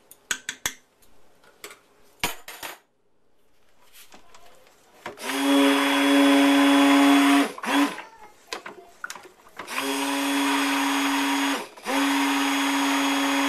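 Braun stick blender running in a stainless steel pot of cold-process soap batter, switched on in three bursts: a first of about two seconds, then two more separated by a short break. A few sharp clicks come in the first couple of seconds, before the blending starts.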